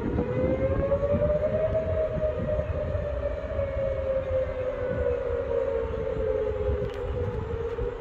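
Outdoor tornado warning siren wailing, its pitch rising slowly for about two seconds and then gliding down, over a low rumble.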